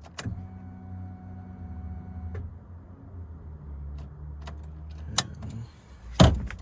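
Honda Civic's ignition keyed on without the engine cranking: a click, then a steady electric hum for about two seconds, followed by a lower steady hum. A loud sharp knock comes near the end.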